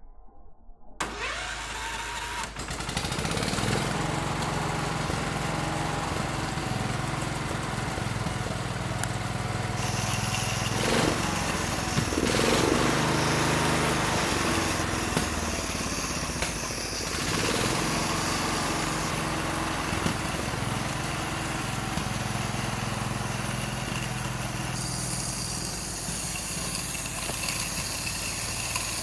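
Four-cylinder engine of a 1926 Fordson tractor coming in about a second in and running steadily.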